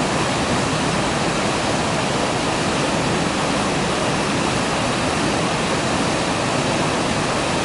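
Mountain waterfall pouring steadily, a dense, unbroken rush of falling water.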